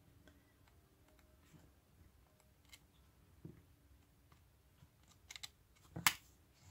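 Faint, scattered ticks and rustles of paper being handled as the sheets of a patterned paper pad are leafed through. A sharper paper rustle comes about six seconds in.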